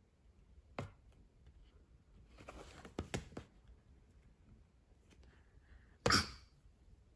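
Stiff cardboard page of a board book being turned: a short rustle with a couple of sharp clicks. Near the end comes a louder, short noisy burst.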